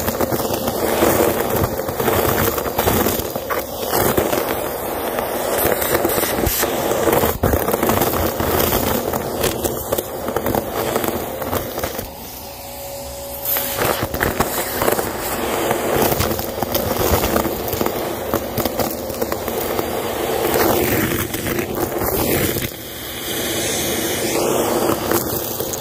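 Vacuum cleaner running through a crevice tool, crunching up a heap of confetti and glitter debris from carpet, with dense crackling and rattling as the bits are sucked up the wand. The sound drops briefly twice, in the middle and near the end.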